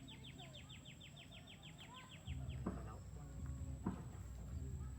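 A bird calls a rapid series of short, falling high notes, about six a second, that stops about two and a half seconds in, with other birds chirping softly. From about two seconds in a steady low rumble comes up and becomes the loudest sound, with a couple of brief knocks.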